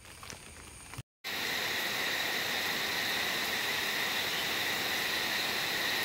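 Crickets trilling in a steady, high, unbroken chorus over an even hiss. The chorus comes in loudly after a brief quieter stretch and a short dropout about a second in.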